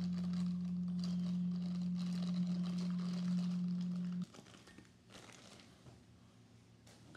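Motorized display turntable running with a steady low hum and a faint crackle, cutting off suddenly about four seconds in.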